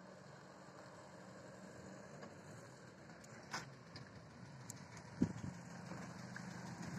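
Land Rover Series III fire engine's engine running at low speed, growing louder as the truck drives up close. A sharp click about three and a half seconds in, and a louder knock a little after five seconds.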